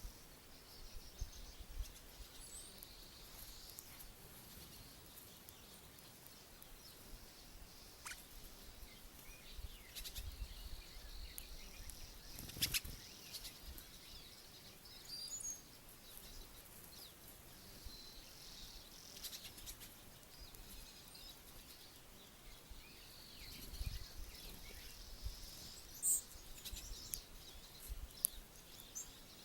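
Faint outdoor ambience of small songbirds giving scattered short high chirps over a steady high-pitched hiss, with a few sharp clicks.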